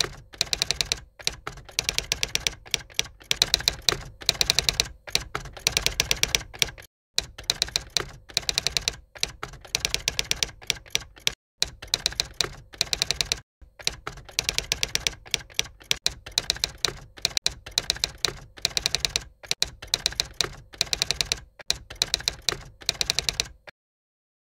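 Typewriter keys typing in quick runs of keystrokes, broken by a few short pauses, stopping shortly before the end.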